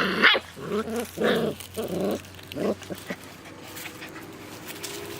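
Goldendoodle puppies about five and a half weeks old growling and yipping as they play-wrestle: a quick run of short calls over the first three seconds, then it goes quieter.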